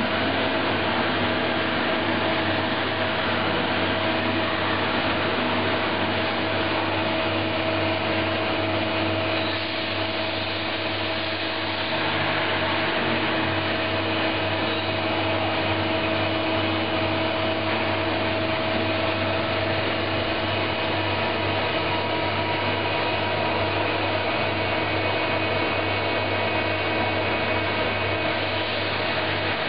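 Mazak VQC-20 vertical machining center running: a steady machine hum with several constant whining tones, briefly a little quieter about ten seconds in.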